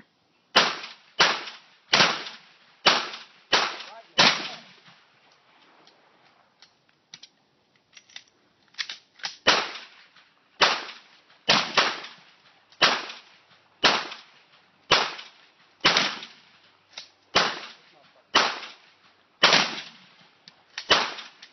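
A volley of about twenty shotgun blasts from two shooters, fired roughly a second apart, with a pause of about four seconds in the first half where only faint clicks are heard.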